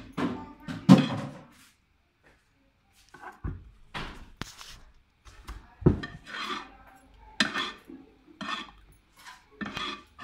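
A plastic spoon scraping and knocking against an aluminium bowl as fried chicken pieces are turned in a thick marinade: a string of separate short scrapes and knocks, with a brief silent pause about two seconds in.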